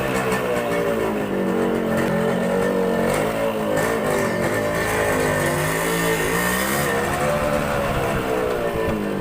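Motorcycle engine running under way, its pitch rising and falling smoothly as the throttle is opened and eased off.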